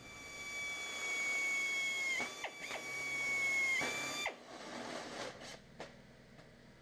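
A power cutting tool running with a steady high whine while cutting sheet metal. Its pitch dips briefly under load twice, and it cuts off suddenly about two thirds of the way in. A few light clicks and knocks follow.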